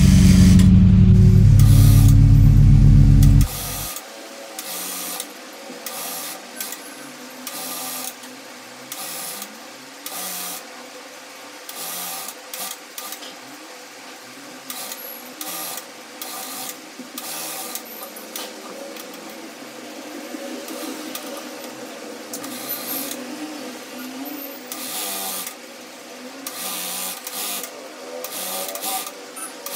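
Music for the first three seconds or so, then cuts out. After that an electric sewing machine stitches a lace border onto the edge of a saree in short runs, starting and stopping every second or two over a faint steady motor hum, with cloth rustling as the fabric is fed.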